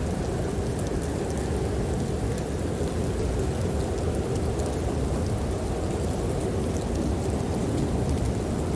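Steady, low rushing of snowstorm wind, with faint small crackles of a wood fire in a fireplace.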